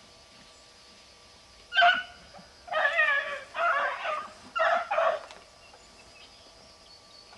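Beagles baying on a rabbit's scent, out of sight in the brush. One short yelp comes about two seconds in, then a run of long, wavering bawls lasting about three seconds before the dogs go quiet again.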